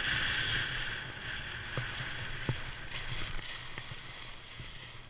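Skis sliding and scraping over packed snow, a steady rushing hiss that fades toward the end, with a few faint clicks.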